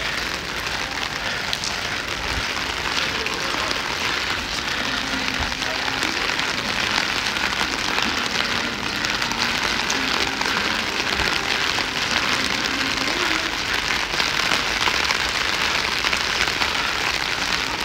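Steady rain falling, a dense even wash of many small drop impacts.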